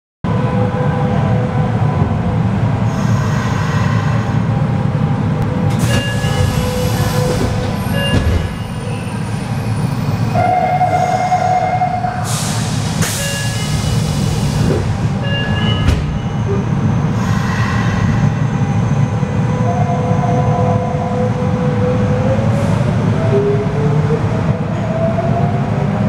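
Nagoya Municipal Subway 5050 series car heard from inside: a steady running rumble with a thin motor whine, while the sliding doors open and close at a station. Short beeping door chimes sound twice, with a knock as the doors move, and the motor whine climbs in pitch near the end as the train pulls away.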